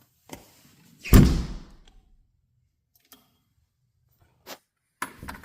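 One loud, sharp thunk about a second in, dying away quickly, from the smart door lock being handled. A few faint clicks follow, with more clicking near the end.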